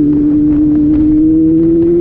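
Motor vehicle engine running hard at steady high revs, its note holding and then slowly rising in pitch.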